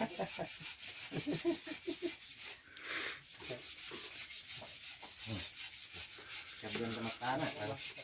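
Wood being hand-sanded or rubbed, a quick even run of rasping strokes, several a second.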